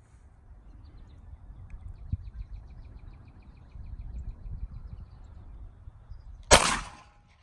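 A single 9mm Glock 43X pistol shot about six and a half seconds in: one sharp crack with a short decaying tail, over a low rumble.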